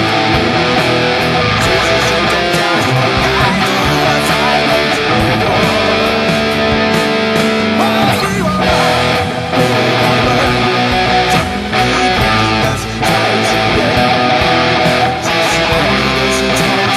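Guitar-led music, loud and steady throughout.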